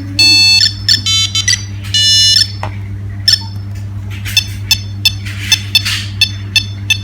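Nokia 3610 mobile phone playing one of its built-in ringtones: a beeping tune of single notes, a few held notes in the first seconds, then a run of short beeps about three a second.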